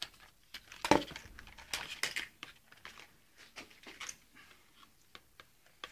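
Packaging crinkling and rustling in the hands as a set of mountain bike grips is taken out of the box. Irregular small crackles and rustles, the loudest about a second in.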